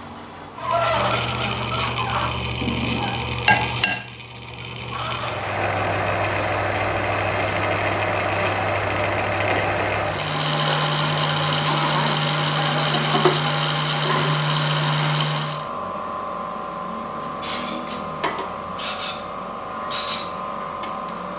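Metal lathe running with a gear shaft spinning in its four-jaw chuck, its steady motor hum stepping to a new pitch twice as the speed changes, then winding down about three-quarters of the way through. Near the end, short hissing bursts from a compressed-air hose.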